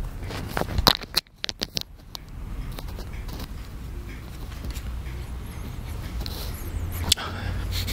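Soft foam squishy toy being squeezed and rubbed by fingers close to a binaural microphone: scraping, crackling handling sounds, with a quick cluster of sharp clicks about a second in and a single sharp click near the end.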